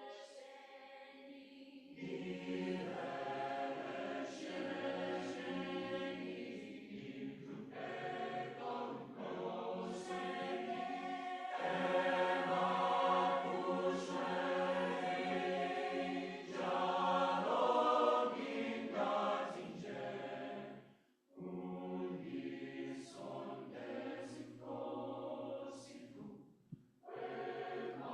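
Mixed student choir singing a Zulu call-and-response prayer song. The singing is quieter for about the first two seconds, then the full choir comes in loudly, with a brief break about 21 seconds in before it resumes.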